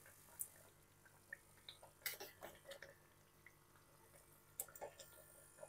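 Faint, scattered clicks and ticks from the pan of simmered jackfruit curry, in small clusters, with a sharper click at the very end.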